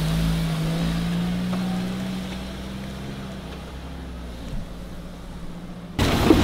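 Mahindra Thar 4x4 engine running under load as it crawls over rocks, its note climbing slightly, then easing off and growing quieter. A sudden louder sound cuts in near the end.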